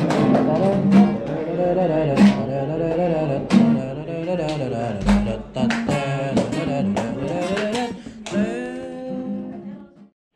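Acoustic guitar strummed with a woman singing along. The music cuts off suddenly near the end.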